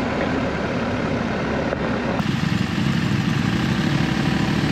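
BMW R 1250 GS on the move: its boxer-twin engine running steadily under a dense rush of riding noise, with the sound changing abruptly about two seconds in.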